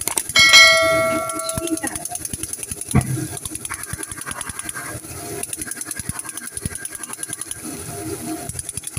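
Shredded chicken sizzling and crackling in a frying pan as a wooden spoon stirs it, with a knock of the spoon about three seconds in. About half a second in, a bell chime rings for just over a second, the ding that goes with a YouTube subscribe animation.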